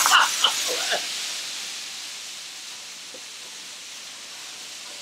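Flambéed fajitas hissing and sizzling in a cast-iron skillet after liquor is poured on and set alight; the hiss fades over the first two seconds and settles into a softer steady sizzle.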